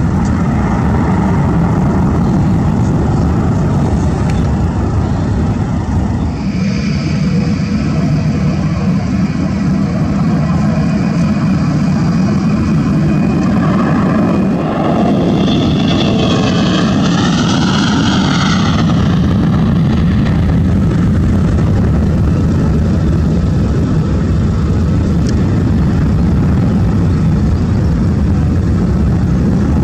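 Jet airliner engines at takeoff power: the roar of a climbing Airbus A320 gives way, about six seconds in, to the high whine of a Sukhoi Superjet 100's SaM146 turbofans. Around the middle, the whine's pitch rises and falls over several seconds, then a steady full-power roar carries on through the takeoff and climb-out.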